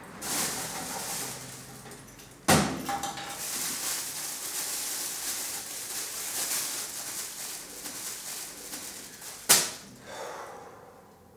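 Paper rustling as a crumpled sheet is unfolded in the hands, between two sharp knocks. The second knock, near the end, is a metal mailbox door shutting.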